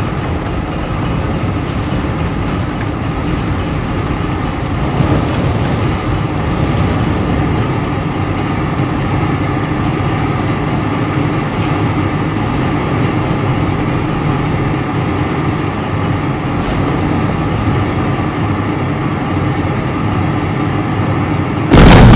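A burning oil-well gusher gives off a steady, loud, dense noise. Near the very end a sudden, much louder dynamite blast goes off to snuff out the well fire.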